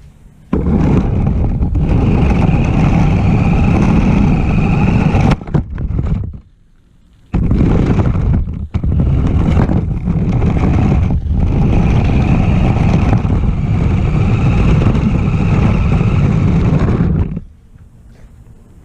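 Radio-controlled car driving, its motor and wheels making a loud, steady running noise. It drops out for about a second around six to seven seconds in, then runs again and stops about a second before the end.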